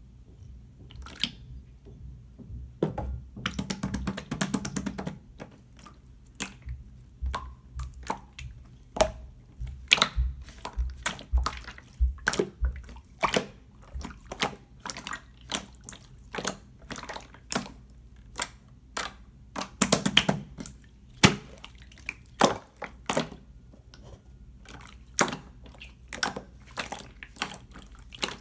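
Clear slime being pressed and stretched by hand, giving irregular wet clicks and air-bubble pops, with denser crackling bursts about four seconds and twenty seconds in.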